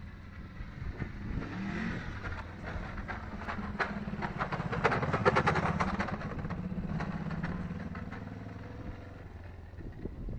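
Kawasaki ER-5's parallel-twin engine running, its revs rising about two seconds in, loudest around the middle, then dropping back toward idle. The bike idles properly but bogs down and runs rich with black smoke at high revs, which the owner puts down to a tired carburetor.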